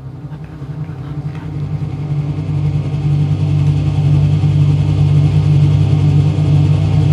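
A loud, low, steady drone with a fixed pitch, growing louder over the first three seconds and then holding. It is the mystery noise that gave the group a scare at the end of the house exploration, which a friend later said he had made himself.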